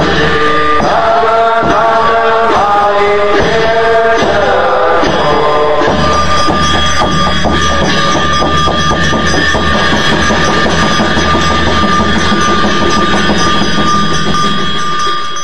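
Buddhist devotional chant music: a sung melodic line over accompaniment for the first five seconds or so, then from about six seconds a steady drone with fast, dense drumming. The music fades off right at the end.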